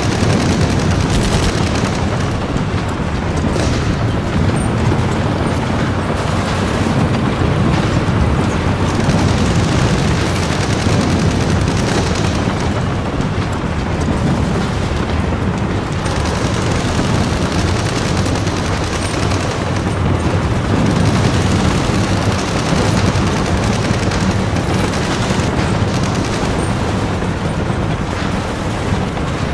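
Battle sound effects: dense, unbroken rifle and machine-gun fire mixed with explosion booms.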